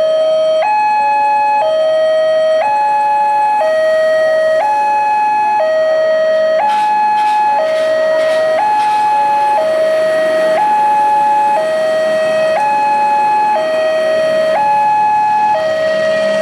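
Railway level crossing warning alarm sounding: an electronic two-tone signal alternating steadily between a lower and a higher tone, each held about a second, warning that a train is approaching.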